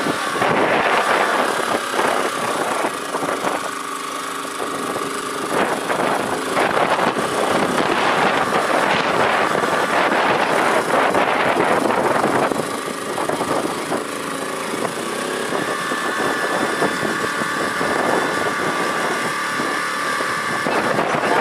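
Small engine on an electrofishing boat running steadily, with a thin steady whine through it; it grows louder for a few seconds near the middle.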